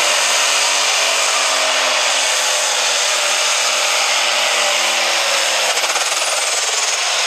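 John Deere light pro stock pulling tractor's turbocharged diesel engine running flat out under load as it drags the weight-transfer sled, with a high turbo whine over the engine noise. The engine note sinks slowly as the sled's load builds, and the whine falls away near the end.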